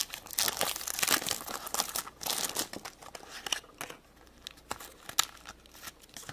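Plastic wrapper of a Squinkies toy packet being crinkled and torn open by hand. Dense crackling crinkles for the first few seconds, thinning to occasional rustles near the end.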